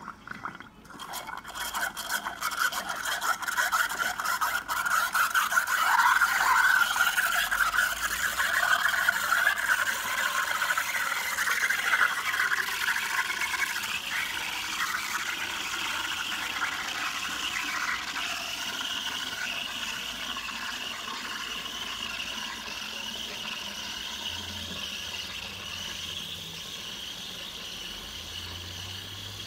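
Steam wand of a Gaggia Espresso Color espresso machine frothing milk in a glass jug: steam hissing into the milk. It starts about a second in, is loudest through the first half, then settles to a softer, steadier hiss as the foam builds.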